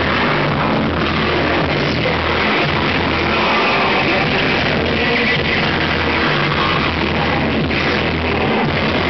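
Loud, harsh noise music played live through electronics and amplifiers: a dense, unbroken wall of distorted sound over a low drone that swells and drops back every second or so.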